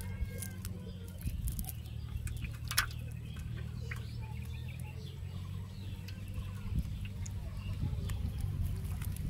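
Rustling and crackling of a nylon cast net and dry leaves as hands pull a fish free from the mesh, with scattered small clicks, one sharper about three seconds in, over a steady low rumble. Faint bird chirps near the start.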